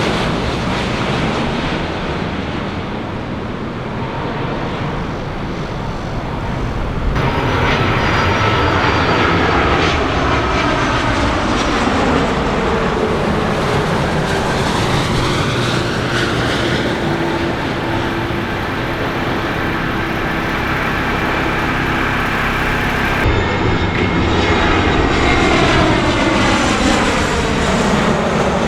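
Jet airliner engines roaring as a plane passes close by, with a whine that slides down in pitch as it goes past. The sound changes abruptly about seven seconds in and again a few seconds before the end.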